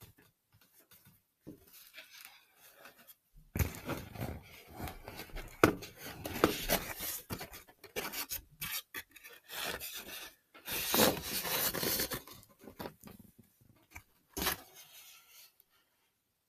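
Rubbing and scraping noises coming and going for about twelve seconds after a quiet start, with a sharp knock near the end.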